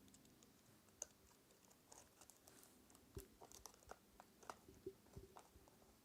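Faint, scattered clicks and crinkles of parcel packaging being handled and opened by hand, the ticks coming more often in the second half.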